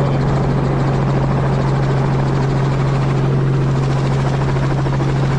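Helicopter in flight heard from inside its open-door cabin: a steady, loud drone of rotor and engine with a strong low hum.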